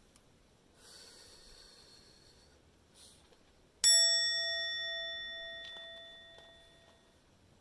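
A piece of metal struck once about four seconds in, ringing with a clear bell-like tone that dies away over about three seconds. A faint hiss comes a couple of seconds before it.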